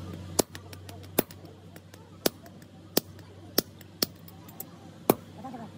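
Sledgehammer blows on a handled tool held against glowing leaf-spring steel on an anvil during hand forging. There are seven sharp metallic strikes, each with a brief ring, coming at an uneven pace of about one every half second to a second.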